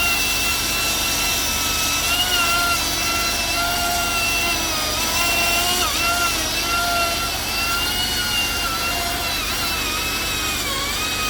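Battery-powered chainsaw running and cutting through a dead tree's wood: a steady whine whose pitch dips and wavers several times as the chain bites under load.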